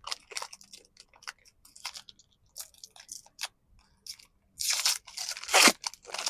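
Small plastic parts clicking and rustling as they are handled, then, from about four and a half seconds in, louder crinkling and crackling of thin plastic packaging being pulled open.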